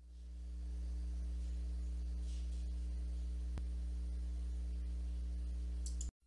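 Steady low electrical mains hum with a few higher overtones, fading in at the start and cutting off abruptly near the end. A faint click comes about halfway through.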